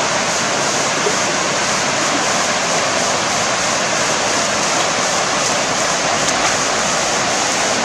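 Steady, even rushing noise of water, without breaks or separate splashes.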